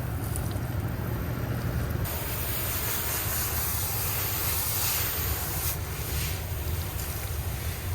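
A liquid spray hissing onto an air-conditioner coil, coming in about two seconds in and easing off near the end, over a steady low hum.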